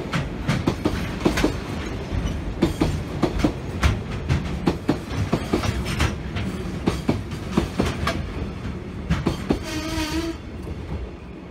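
A freight train of container wagons passing close by: a steady rumble with rapid clickety-clack of wheels over the rail joints. About ten seconds in, a short pitched tone sounds as the last wagon goes by, and the rumble then falls away.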